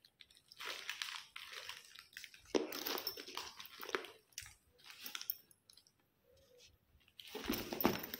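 Packaging rustling and crinkling as a newly unwrapped handbag and its wrapping are handled, in irregular bursts of a second or two with short pauses between.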